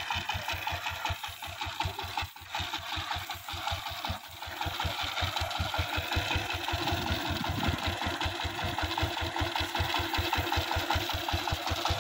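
Single-cylinder diesel engine of a hand-cranked power tiller running with a steady, rapid knocking beat. It falters briefly twice in the first few seconds, then runs louder from about four seconds in.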